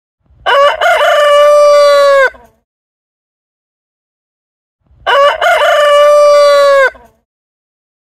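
Rooster crowing twice, about four and a half seconds apart. Each crow opens with a few short broken notes and runs into one long held note that drops at the end.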